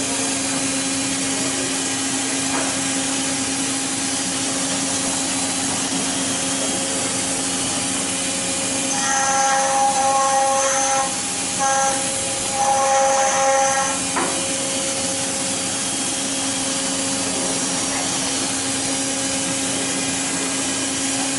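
CNC stone-carving machine's spindle running, its small carving bit grinding a white stone statue under water coolant: a steady hum with a rough grinding hiss. About nine seconds in, a louder, higher whine comes and goes three times over about five seconds, then the steady grinding goes on.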